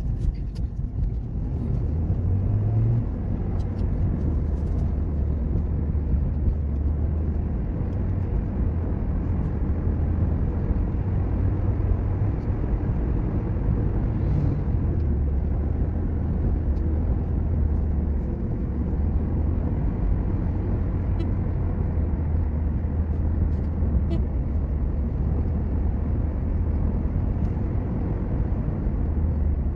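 Steady low rumble of road and engine noise inside a car's cabin while it cruises along an expressway.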